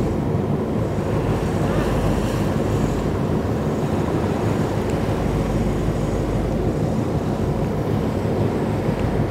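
Steady rush of churned sea water and wind buffeting the microphone from a boat under way while trolling, with the low drone of its engine underneath.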